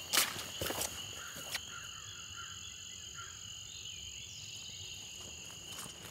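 Footsteps swishing through wet grass for about the first second and a half, then stopping. Behind them a steady, high-pitched chorus of frogs trilling, with a few soft chirps and a short rapid trill about four seconds in.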